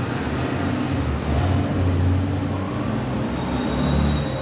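A steady low rumble, with a faint high whine coming in near the end.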